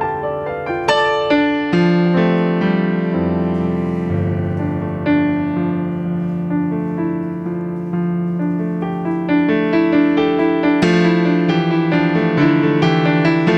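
Piano playing improvised music: single struck notes ringing out and decaying, with fuller, busier chords near the end.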